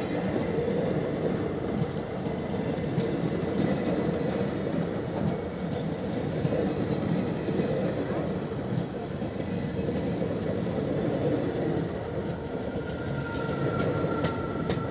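Indian Railways passenger coaches of an express train rolling past at speed: a steady rumble of wheels on rail with scattered clatter. A thin high whine comes in near the end.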